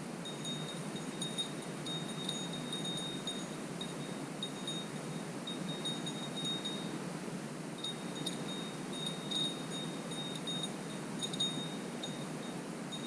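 Small Valdai bell tinkling on and off in irregular little clusters, its thin ringing coming and going, over a steady low background rush.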